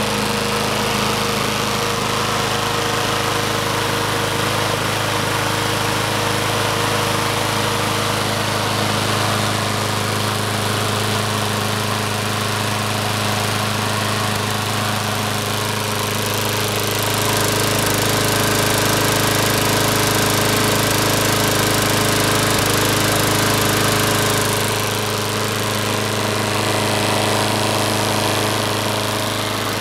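Troy-Bilt walk-behind mower's Briggs & Stratton 6.50 HP engine, freshly started, running steadily at a constant speed. It gets a little louder for several seconds in the middle.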